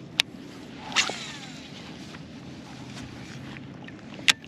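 A cast with a baitcasting rod and reel: a sharp click of the reel, then a swish of the rod about a second in with a faint whirring that falls in pitch as line pays off the spool, and another sharp click near the end as the reel is engaged. Water lapping and wind run underneath.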